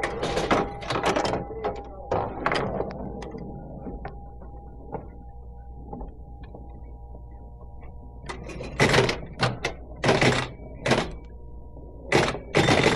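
Pinball machine being played: bursts of sharp mechanical clacks from the flippers and bumpers, with faint ringing tones under them. The clacks bunch up in the first second or two, ease off through a quieter middle stretch, and return as a run of loud clacks in the last few seconds.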